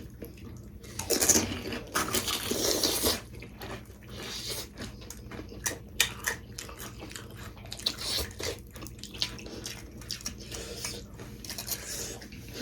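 Pani puri being eaten close to the microphone: crisp puri shells crunching and the tangy pani water slurped, with a couple of louder bursts early on and scattered small clicks after.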